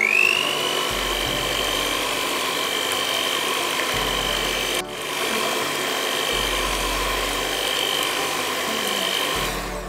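Electric hand mixer beating egg yolks in a bowl: the motor spins up to a steady high whine at the start, cuts out for an instant near the middle, and stops just before the end.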